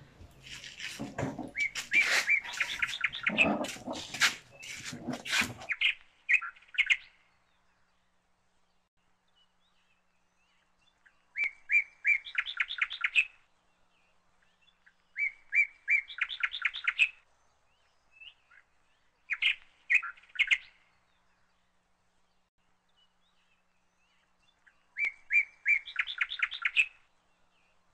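A bird calling repeatedly in bursts of quick chirping notes that climb in pitch, each burst lasting about two seconds. A few sharp knocks and clicks sound over the first few seconds.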